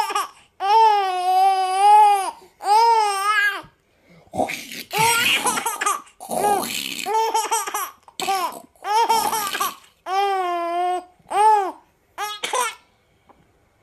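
Baby laughing and squealing in a string of high-pitched vocal bursts with short pauses between. The first two are long, steady squeals, and breathier giggles follow.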